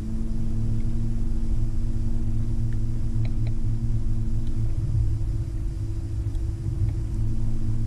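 Electric bow-mount trolling motor running with a steady hum that cuts off about halfway through and comes back on near the end, over a low, steady rumble.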